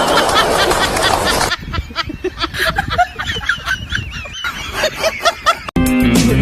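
A bird calling in a rapid series of short, wavering high cries, over a noisy haze for the first second and a half. Near the end it cuts off sharply and music starts.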